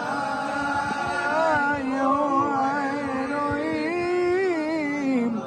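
Male cantor singing a long, unbroken, ornamented Mizrahi-style phrase into a microphone, with other men's voices singing along. The line rises a little, then falls away near the end.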